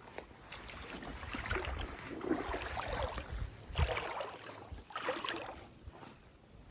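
Water splashing and sloshing in a creek, in irregular surges that come several times over a few seconds.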